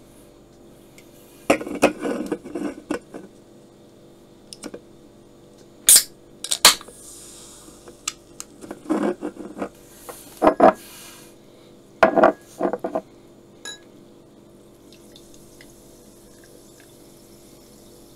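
An aluminium soda can is handled with a series of sharp clicks and taps, and its pull-tab cracks open with two loud clicks about six seconds in, followed by a hiss of escaping gas. Near the end the carbonated soda is poured into a glass with a faint fizzing hiss.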